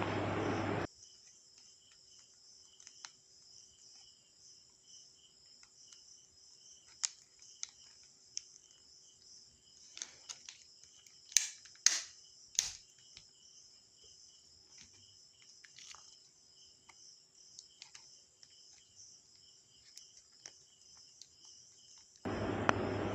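Faint steady chirring of crickets, with scattered small clicks and taps of a laptop battery being handled and three sharp clicks about halfway through. A steady hiss fills the first second and returns near the end.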